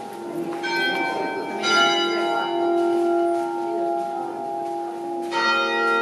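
Church bells ringing, with fresh strikes twice in the first two seconds and again near the end, each stroke's tone ringing on and overlapping the others.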